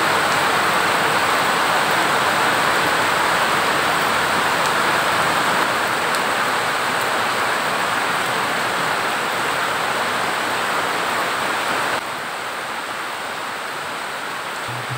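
Heavy rain falling steadily, a dense even hiss that drops a little in level about twelve seconds in.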